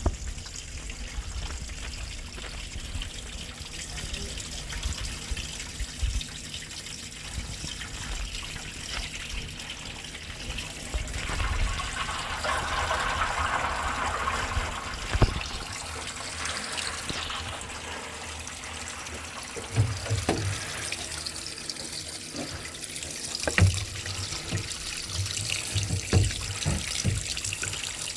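Water running and trickling steadily, swelling for a few seconds near the middle, with a few sharp knocks scattered through the second half.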